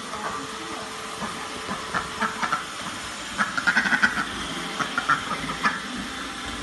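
Vacuum cleaner running steadily while a duck gives clusters of short, sharp calls about two seconds in, around three and a half to four seconds, and again near five seconds.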